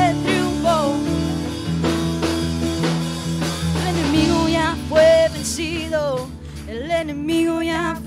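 Church worship band playing a praise song, with voices singing drawn-out, wavering lines over held chords.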